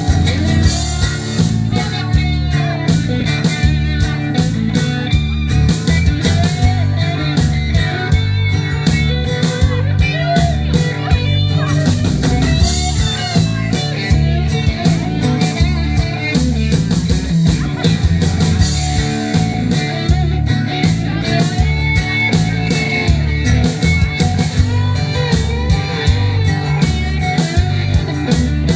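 Live country-rock instrumental break: guitar playing a lead line over bass and a steady beat.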